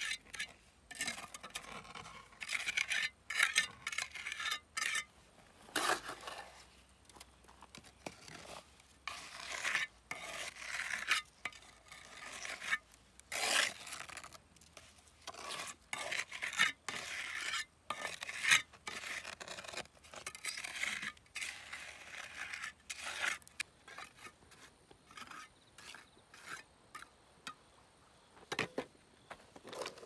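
Irregular scraping and clinking of a hard tool against a hard surface, stroke after stroke, thinning out to a few light knocks near the end.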